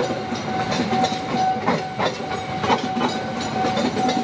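Passenger train coaches passing close by at speed, the wheels clacking over rail joints about two or three times a second, with a steady high-pitched tone running throughout.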